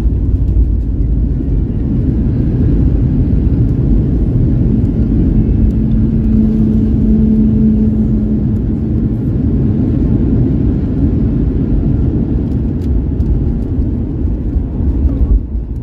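Loud, steady low rumble in the cabin of a Boeing 737-8200 during its landing rollout, from the engines and the wheels on the runway as the jet brakes hard from about 250 to 90 km/h. A steady hum joins it for a few seconds in the middle, and the rumble eases just before the end.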